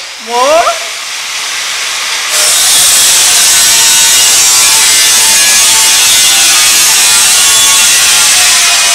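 A loud, steady rasping noise, like sawing or rubbing, that swells to full strength about two seconds in. A brief rising squeal comes about half a second in.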